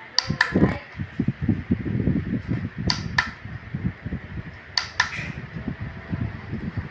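Small battery-powered desk fan's airflow buffeting the microphone in a low, fluttering rumble, with three pairs of sharp clicks about two seconds apart.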